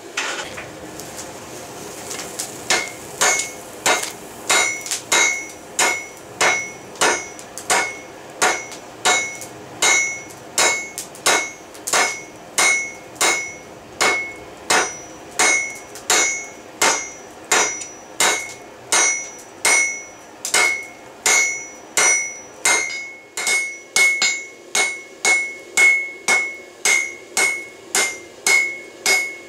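Hand hammer striking red-hot railroad-spike steel on a Peddinghaus anvil in a steady rhythm of about one and a half blows a second, each blow leaving a short metallic ring. The smith is forge-welding the spikes together. After a few scattered blows the steady rhythm starts about two and a half seconds in.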